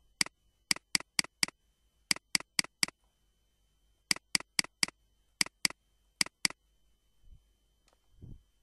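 Computer mouse clicking: about seventeen sharp clicks in quick runs of two to five, as parts of a circuit schematic are selected and deleted.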